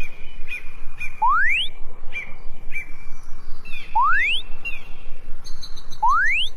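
Dubbed cartoon sound effects: three quick rising whistle glides, a couple of seconds apart, over a string of short high chirps repeating about twice a second.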